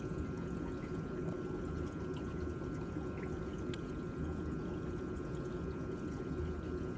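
Steady rush of water circulating through a turtle biotope's filter system, with a faint steady whine over it.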